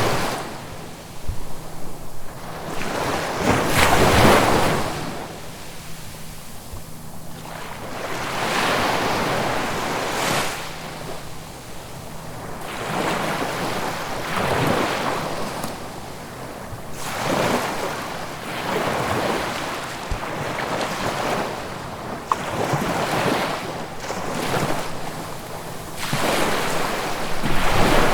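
Ocean waves breaking and washing up the shore, one surge after another every few seconds, each swelling to a rush and falling away.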